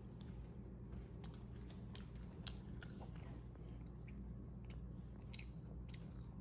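Faint chewing of a soft caramel apple glazed donut, with small scattered mouth clicks over a steady low hum.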